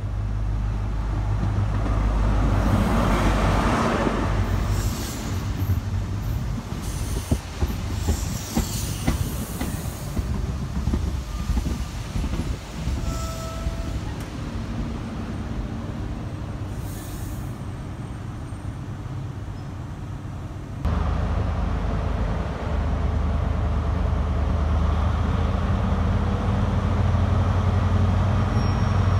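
A High Speed Train's Class 43 diesel power car passes at speed, loudest about three seconds in, followed by its coaches with a rush of air and a rapid clatter of wheels over rail joints. About 21 seconds in the sound changes abruptly to the steady low drone of HST diesel power cars running at a standstill.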